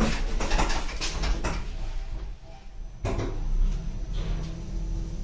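Passenger lift doors closing and locking, with several clunks and clicks in the first second and a half. About three seconds in, the lift car starts to travel with a steady low hum of the drive and car.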